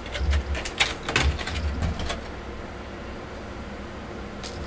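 Handling noise of small plastic figure parts: a run of light clicks and dull knocks over the first two seconds, then a quiet stretch and a couple more clicks near the end.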